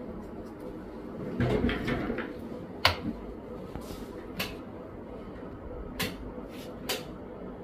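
Handling noise on a workbench: a rustle and bump about a second and a half in, then four sharp clicks or knocks spread over the following seconds, the loudest about three seconds in.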